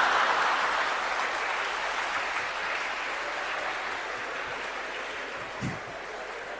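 Large audience laughing and applauding, the noise dying away gradually.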